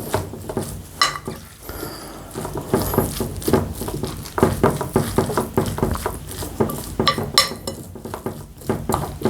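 Spoon scraping and clinking against a bowl of bibimbap, a busy run of small strokes with a few sharper clinks about a second in and near the end.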